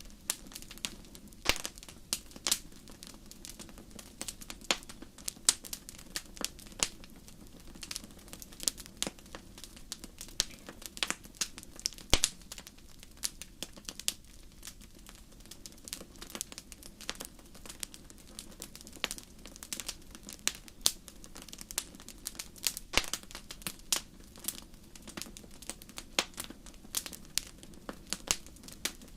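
Wood fire burning in a fireplace: a steady low rush of flames with irregular crackles and sharp pops from the burning wood, several a second.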